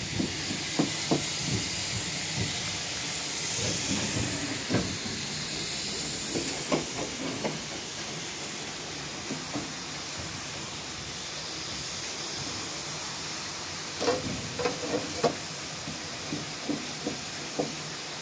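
Steam steadily hissing from a standing steam locomotive still in steam after its day's work, with scattered short knocks in small clusters.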